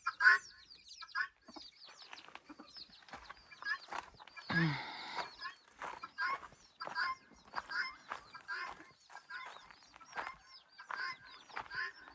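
Mother hens clucking among their chicks, with a steady run of short, high calls and one louder, longer call about four and a half seconds in.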